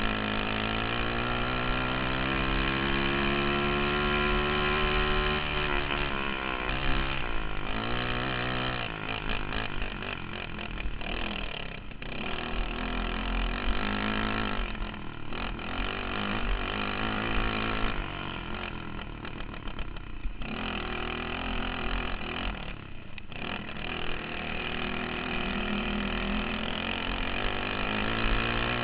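Dirt racing kart engine at race pace, heard close up. It revs up in long rising sweeps on the straights and drops back off for the corners: a long climb over the first few seconds, then choppier lifts and dips mid-lap, and another climb near the end.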